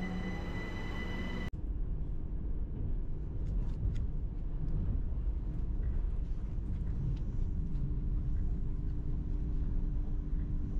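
A passenger train moving along a platform, with a steady high whine and a motor tone rising in pitch as it picks up speed. About a second and a half in, the sound cuts to the steady low rumble of riding inside a moving train carriage, with a few light clicks and a low hum coming in later.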